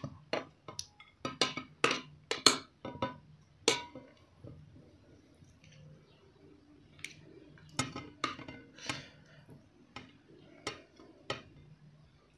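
Metal spoons and forks clinking and scraping against plates as food is served and eaten. The sharp clicks come thick for the first few seconds, then more sparsely.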